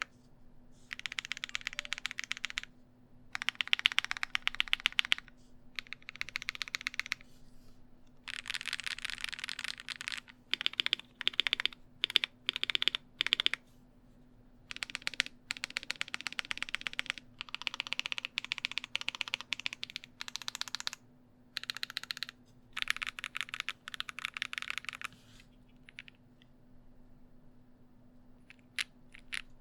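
Clacky typing on a GMMK Pro custom mechanical keyboard with Ice Cream switches (Aqua King housings with Cream stems, lubed), GMK keycaps, the stock aluminium plate and a PE foam mod. Fast runs of keystrokes a second or two long alternate with short pauses, with slower single key presses around the middle and only a few scattered clicks near the end.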